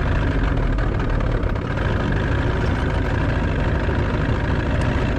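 Motorboat engine running steadily.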